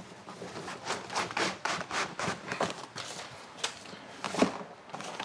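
Cardboard box and packing paper rustling and scraping as a rolled bend of Hermann Oak bridle leather is slid out of it, with irregular handling knocks and a sharper knock about four seconds in.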